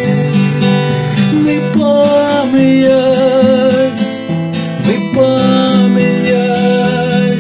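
Acoustic guitar strummed under a man's singing voice holding long notes with vibrato.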